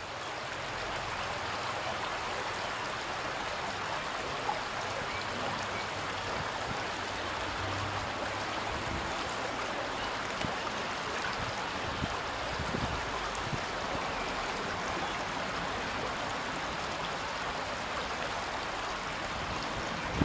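Flowing river water: a steady, even rushing.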